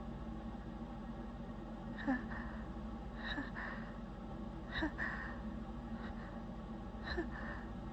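A woman's short catching breaths as a sneeze builds and is held back: four quick gasps, each with a brief falling squeak of voice, over a steady low hum.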